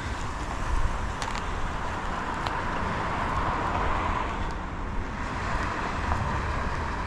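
Steady vehicle noise, a low rumble under a hiss, with a few faint clicks in the first few seconds.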